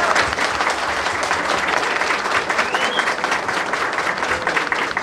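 A roomful of people applauding: dense, steady clapping.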